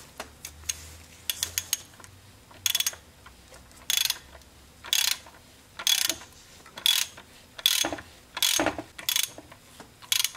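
Hand ratchet turning a 24 mm socket on an extension, tightening a cartridge oil filter cap: a few light ticks, then about nine short bursts of pawl clicks, roughly one a second, as the handle swings back between strokes.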